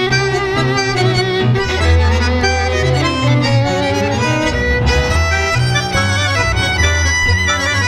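Tango music from a tango orchestra: bandoneón and violins carry the melody with vibrato over piano and plucked double bass.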